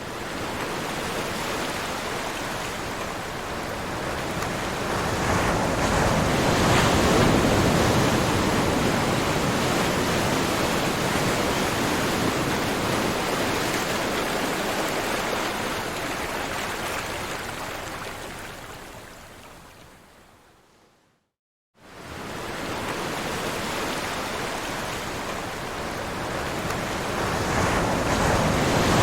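Ocean surf washing, swelling up and then fading out, with a break of about a second of silence before the waves start again and build.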